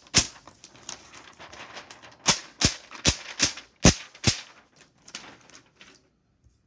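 Clear plastic transfer sheet being peeled off the carrier sheet of printed heat-transfer vinyl in short, quick pulls: sharp crackling snaps of the film, a run of about six between two and four and a half seconds in, with softer rustling between, dying away about six seconds in.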